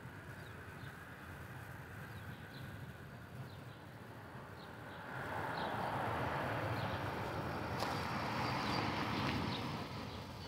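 A road vehicle passing by, its noise swelling in about halfway through, holding for a few seconds and fading near the end. Faint short high chirps of a small bird run through the background.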